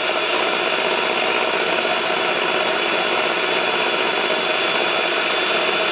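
Electric hand mixer running steadily, its beaters whipping instant coffee, sugar and water in a glass bowl to a froth.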